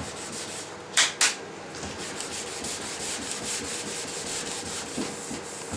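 Hand sanding of body filler on a car door panel: quick, even back-and-forth rasping strokes, about five a second, with two louder scuffs about a second in.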